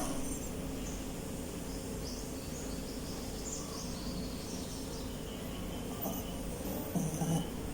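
Sleeping poodle snoring softly over a steady background hiss, with faint short high whistly sounds in the middle and a brief louder low snore a little before the end.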